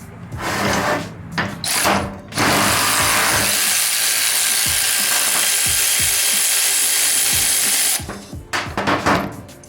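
Milwaukee M12 Fuel 3/8" cordless ratchet running in a few short bursts, then one steady run of about five and a half seconds, then short bursts again, as bolts on the serpentine belt tensioner are run in or out.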